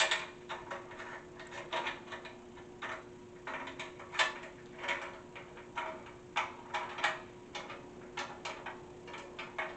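Irregular sharp clicks and knocks of metal futon-frame parts and hardware being handled and fitted together, over a faint steady hum.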